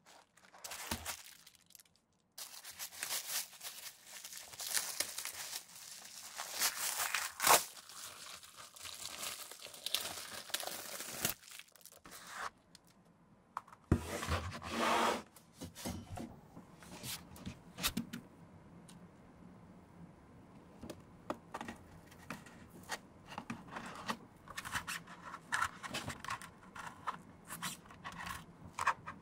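Masking tape and plastic masking film peeled off a leather ballet flat, with tearing and crinkling for about twelve seconds. A knock about halfway, then quieter scattered clicks from a metal awl working the inner seam as hand stitching starts.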